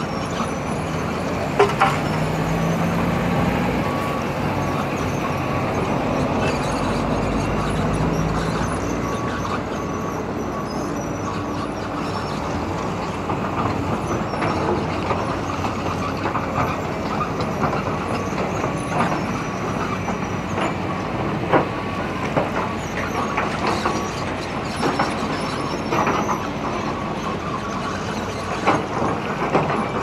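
Caterpillar 320D excavator's diesel engine running steadily under working load, with repeated knocks and clatter of stones and the steel bucket as it dumps and digs rubble; one sharp knock comes about a second and a half in.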